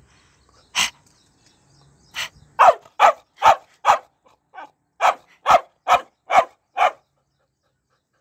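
A six-month-old female Boxer puppy barking: a run of about ten short, sharp barks at roughly two a second, the bark the uploader calls her angry mood.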